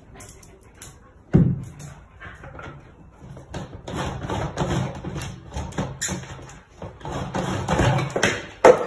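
A sharp thump about a second and a half in, then uneven knocks and rustling as a cat paws and pushes at white plastic barrels on a wooden table.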